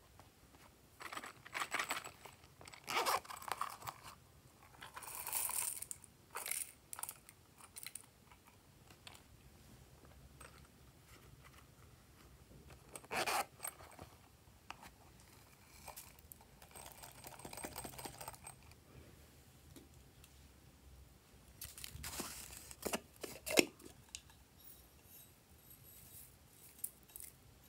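Intermittent rustling and rattling from small squishy silicone pouches being handled and shaken, spilling glitter and sequins into glass dishes of clear slime. There are several separate short bursts, the loudest clusters in the first few seconds and again a little past the middle.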